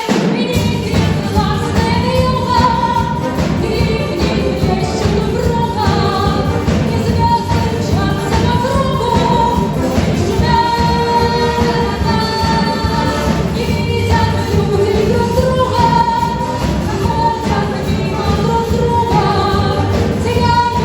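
A song playing: held, wavering sung vocals over full instrumental backing.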